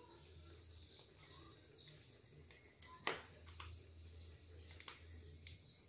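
Faint sharp clicks and taps of a knife against the shell of a tied mud crab as its belly is pierced to weaken it before cleaning: a handful in the second half, the loudest about three seconds in, over a low steady hum.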